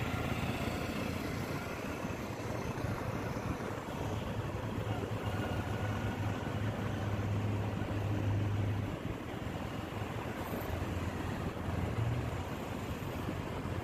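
Steady road noise from riding in a moving vehicle through traffic: a low engine hum and rushing air, with the hum swelling a couple of times along the way.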